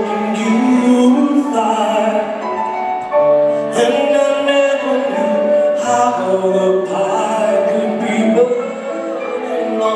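Live performance of a slow rock ballad: a male lead vocalist sings long held notes into a handheld microphone over band accompaniment.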